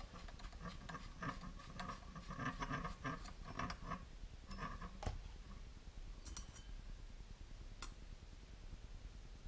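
Light clicks and clinks of small metal screws and chassis parts being handled and fitted together. They are busiest over the first five seconds, with a sharper click about five seconds in, then only a few scattered ticks.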